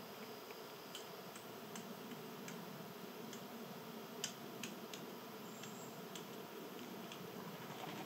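Irregular sharp ticks of seeds being picked at and cracked on a wooden tree stump by animals feeding there, the loudest about four seconds in.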